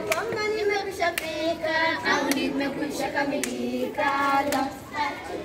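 A group of children singing together, with hand claps about once a second keeping the beat.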